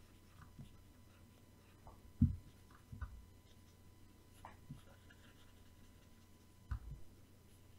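Faint handling noises at a desk: light ticks and three soft low thumps, the loudest about two seconds in, over a faint steady electrical hum.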